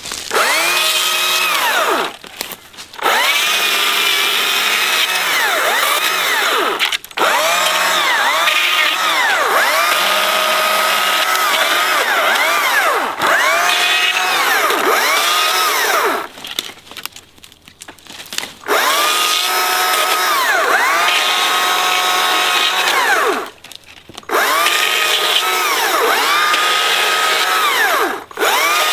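Battery electric chainsaw cutting through branches and a small log: a high whine whose pitch sags each time the chain bites into the wood and climbs back as it frees. It stops briefly several times between cuts.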